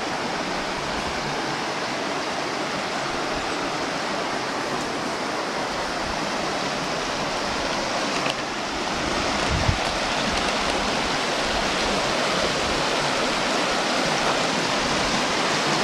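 Mountain creek rushing over rocks in white-water rapids, a steady roar of water that gets a little louder after about eight seconds, with one brief low bump about ten seconds in.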